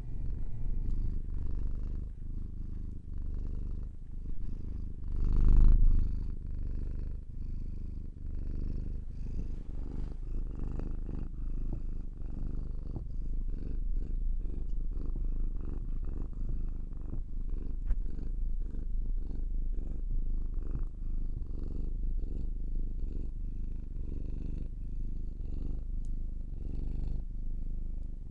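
Domestic cat purring steadily, a low, fast-pulsing rumble, with a brief louder surge about five seconds in.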